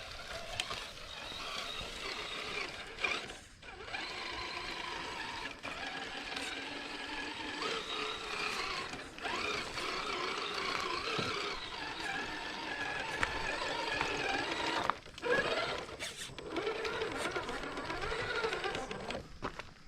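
Electric motor and gearbox of a Traxxas TRX-4 Sport RC crawler whining as it crawls, the pitch rising and falling with the throttle. It cuts out briefly about three and a half seconds in and again near fifteen seconds.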